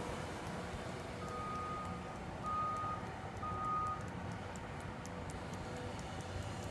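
Backup alarm of a Bobcat skid-steer loader beeping three times, about a second apart, as it reverses, over the low steady running of its engine.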